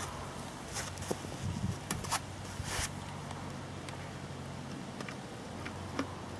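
Steady low hum of the Bola Professional electric bowling machine's motor-driven wheels running, with scattered light clicks and knocks and a sharp crack at the very end.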